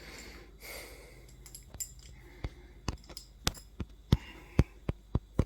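A series of sharp metallic clicks and taps from hand tools working on a fridge door's hinge brackets. They are sparse at first and come about two a second near the end.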